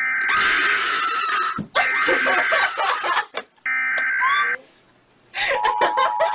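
Loud electronic alarm tones mixed with screaming, cutting in and out abruptly several times. After a short gap of near silence about five seconds in, a steady two-tone emergency alert attention signal starts.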